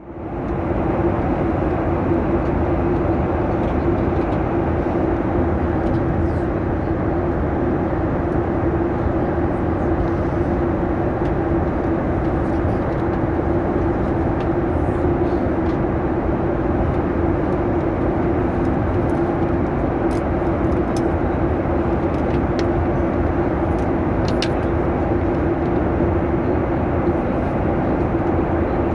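Boeing 737 cabin noise in flight: the steady roar of jet engines and airflow past the fuselage, with a constant low hum.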